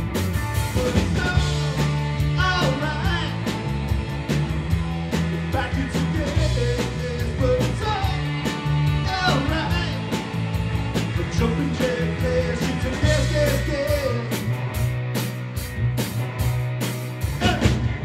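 Live rock band playing: electric guitars over bass guitar and a drum kit, with a lead line that bends and wavers in pitch.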